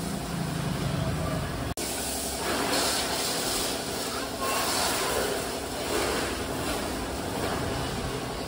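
Pressure-washer water jets hissing against car bodywork, in surges that come and go.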